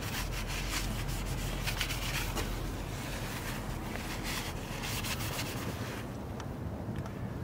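Paper towel rubbing over the plastic coolant reservoir and its cap to wipe up spilled coolant: a run of quick rubbing strokes that fades about six seconds in.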